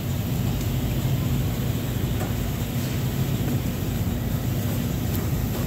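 Steady low hum and rumble of machinery, with a droning pitch and no breaks.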